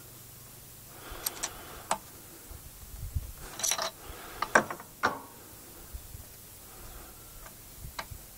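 Scattered sharp metallic clicks and knocks, a dozen or so at uneven intervals with a few dull thumps near the middle: tools and generator parts being handled during reassembly.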